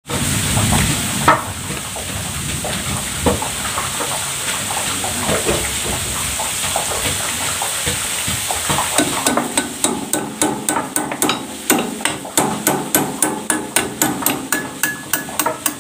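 Hammer tapping on the metal grinding head of a soybean grinding mill: scattered knocks at first, then from about halfway a quick, regular run of sharp metallic taps, roughly three a second, each with a short ring.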